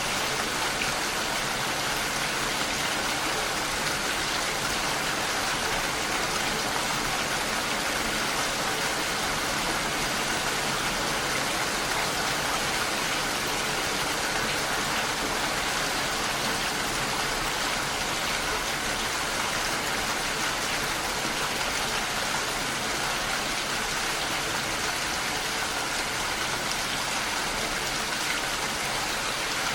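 Steady heavy rain falling, a constant even hiss with no breaks.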